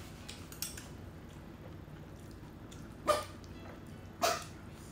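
A pet dog barking twice, short sharp barks a little over a second apart, starting about three seconds in.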